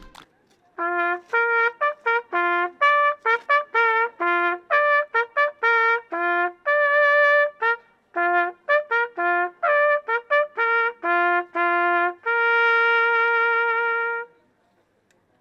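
Solo trumpet playing a fanfare: a quick run of short, separate notes ending on one long held note.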